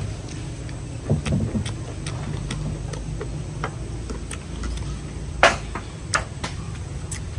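Close-miked chewing of grilled pork belly: wet mouth clicks and smacks at irregular intervals over a low rumble, with one louder smack about five and a half seconds in.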